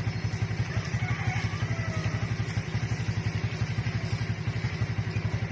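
Small motorcycle engine idling steadily with an even, rapid putter.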